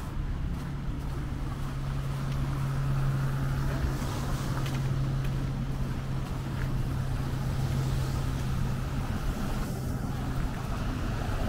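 City street traffic noise with a steady low hum throughout.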